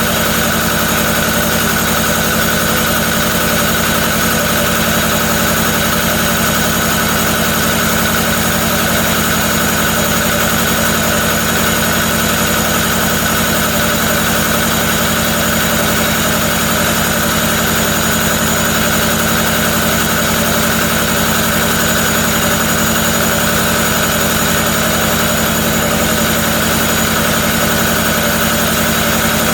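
Kubota V2203 four-cylinder diesel idling steadily in a Willys MB, running without an exhaust system fitted yet.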